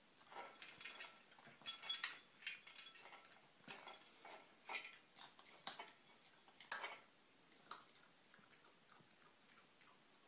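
Miniature schnauzer puppy eating from a stainless steel bowl: irregular clinks of food and teeth against the metal, thinning out after about seven seconds.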